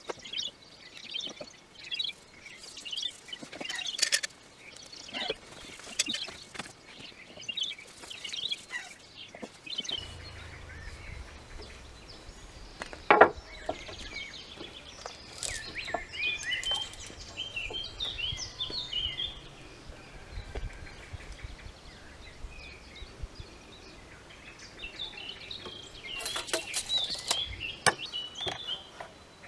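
Small birds chirping, with scattered clicks and knocks from bar clamps and boards being handled during woodworking. One sharp knock stands out about thirteen seconds in.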